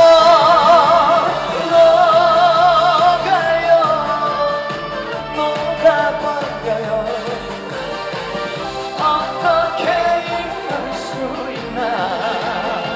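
Live trot song: the singer holds a note with wide vibrato over the band backing, which carries on through an instrumental passage, and a wavering held note comes in again near the end.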